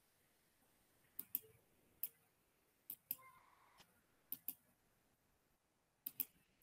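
Computer mouse clicking: about ten short, sharp clicks, several in quick pairs, spread over the few seconds.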